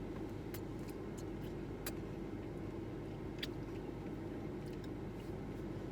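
Steady low hum of a car cabin with the vehicle running, with a few light clicks and taps over it.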